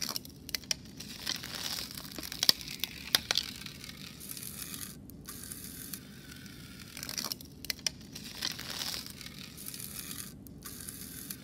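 Frozen latex balloons crinkling and crackling as they warm after liquid nitrogen and re-inflate. The sound is fairly quiet, with scattered sharp crackles over faint steady background noise.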